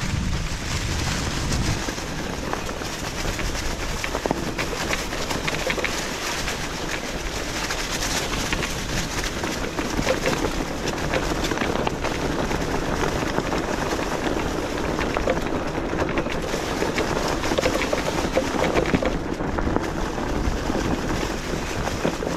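Fat tires of an electric bike rolling over dry fallen leaves on a dirt trail: a steady rustle and crackle with many small ticks.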